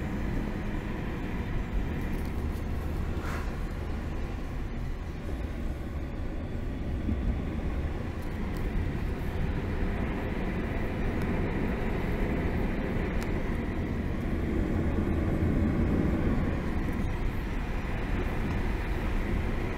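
Car driving at road speed, heard from inside the cabin: a steady low rumble of engine and tyre noise that swells a little in the second half.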